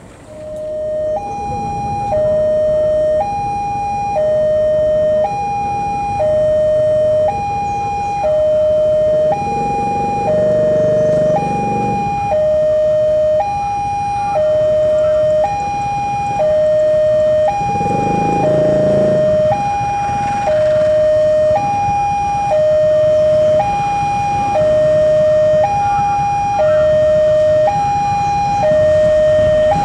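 Electronic railway level-crossing alarm sounding a steady two-tone high–low signal, swapping pitch about once a second. A low rumble lies beneath it and swells twice.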